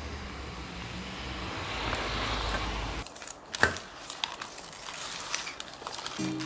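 Road traffic noise that swells about two seconds in and cuts off, then paper wrapping crinkling and rustling as a takeaway food parcel is unfolded by hand in a metal bowl, with one sharp knock.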